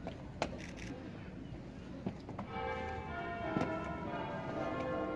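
Church bells start ringing about halfway in, several bell tones sounding together and overlapping. Before that come a few scattered sharp knocks.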